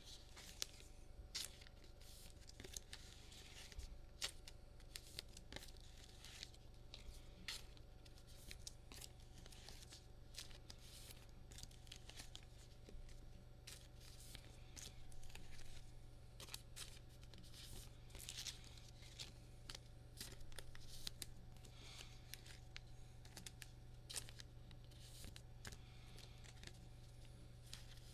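Faint rustling and light clicks of paper trading cards being handled and slid into soft plastic sleeves, an irregular scatter of small sounds throughout.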